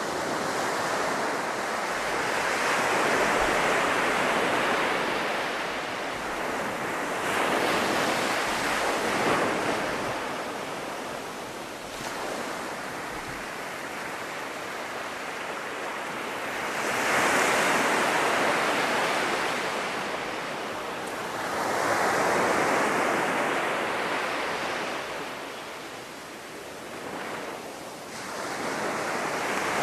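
North Sea surf breaking on a sandy beach, the rush of the waves swelling and falling back every few seconds.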